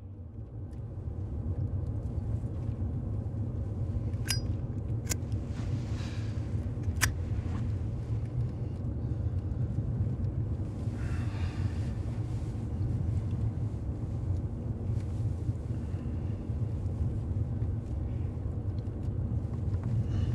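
Car driving, heard from inside the cabin: a steady low engine and road rumble. A few sharp clicks sound in the first seven seconds.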